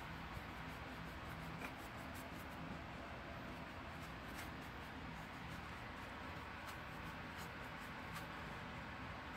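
Soft scratchy brushing of a small paintbrush laying paint onto a craft pumpkin, with faint light ticks from the bristles, over a faint steady low hum and room hiss.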